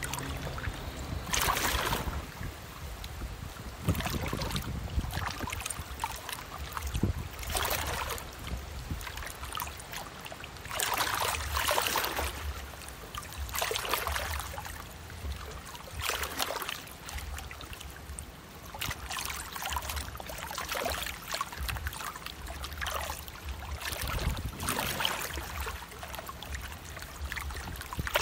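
Water rushing and splashing from a passing container ship's bow wave and wash, swelling in surges every two to four seconds over a steady low rumble.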